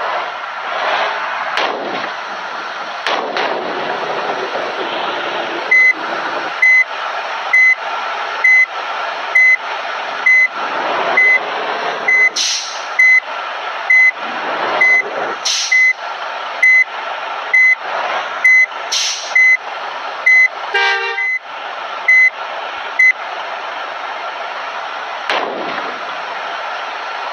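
A bus's reversing alarm beeping steadily about once a second, starting some six seconds in and stopping a few seconds before the end, over engine and traffic noise. Short bursts of air hiss come in between, and a brief horn blast sounds near the end of the beeping.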